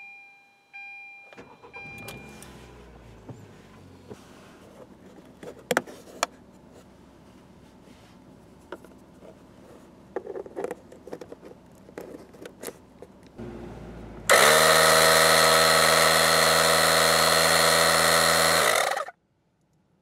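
Car chime beeps as the 2016 Kia Rio's push-button start is pressed, then the engine starts and idles, with clicks as the 12 V plug is pushed into the power socket. About fourteen seconds in, the Dunlop Tech tyre repair kit's 12 V air compressor switches on with a loud, steady buzzing run, then slows and stops about five seconds later.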